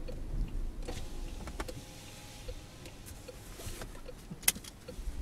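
Inside a car rolling to a stop and idling: a low engine and road rumble with scattered light clicks, and one sharp click about four and a half seconds in.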